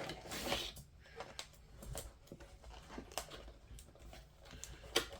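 Cardboard box and packaging being handled: scattered light clicks, taps and brief rustles as the contents are moved about.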